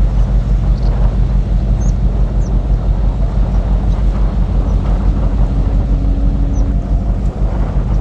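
Wind buffeting the microphone: a loud, fluttering low rumble, with a faint steady hum for a second or so past the middle and a few faint high chirps.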